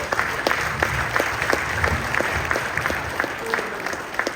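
A gathering of people applauding, many hands clapping together with some sharp individual claps standing out.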